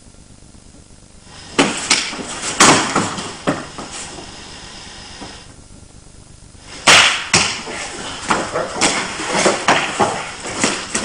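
Hits, thuds and scuffling of two martial artists striking and grappling on a padded mat. The sounds come in two spells with a quiet gap between; the second, from about seven seconds in, is louder and busier.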